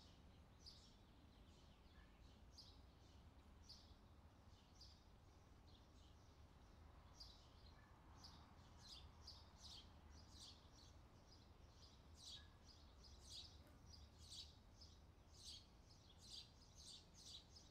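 Near silence, with faint, quick high ticks of knitting needles as stitches are knit, about one a second at first and closer to two a second in the second half.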